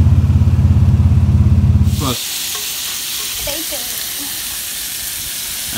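A vehicle engine, the Nissan Patrol's, running with a loud, low, pulsing drone for about two seconds. It cuts off abruptly to bacon sizzling in a frying pan on a portable gas stove, a steady hiss.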